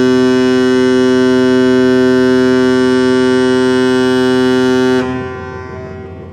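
Passenger ship KM Lawit's horn sounding one long, steady, deep blast that cuts off about five seconds in and trails away as it echoes.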